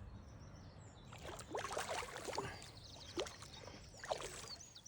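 Faint splashing and sloshing of water from a hooked fish being drawn in at the surface toward the landing net, with a few small irregular splashes or knocks.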